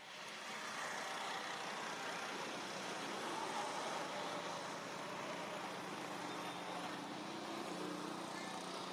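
A motor vehicle running, heard as a steady rushing noise with a faint low hum.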